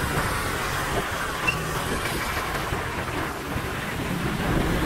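Motorcycle riding on a wet road: engine running and tyres hissing on the wet surface, with steady rushing noise from the ride.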